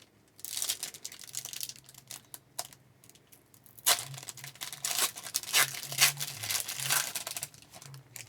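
Wrapper of a hockey trading-card pack being torn open and crinkled in the hands, in rustling, crackling bursts: one starting about half a second in and a longer, louder stretch from about four seconds in.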